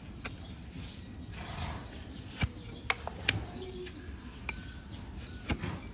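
A donkey's hoof being pared with a large flat hoof-trimming blade: soft scraping cuts through the hoof horn, with a few sharp clicks in the middle and another near the end.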